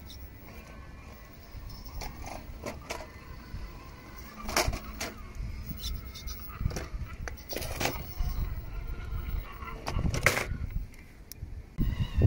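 Element Enduro RC rock crawler clambering over stone: a series of sharp knocks as its tyres and chassis strike the stone steps, over a low rumble.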